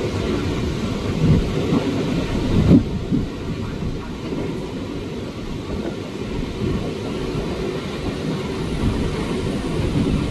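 Passenger train running at speed, heard from inside the coach: a dense, steady low rumble of the wheels and carriage, briefly louder about two and a half seconds in.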